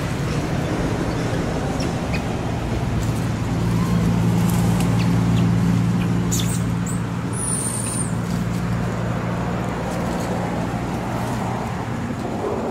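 A steady low engine hum that grows a little louder in the middle, with a brief high chirp about seven and a half seconds in.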